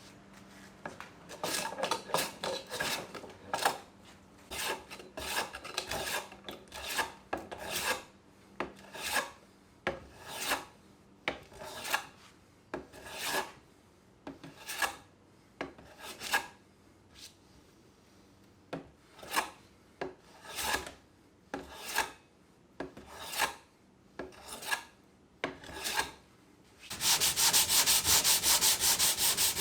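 Abrasive hand strokes rubbing back and forth on a workpiece, about one scraping stroke a second. Near the end they give way to a louder, much faster, continuous scrubbing.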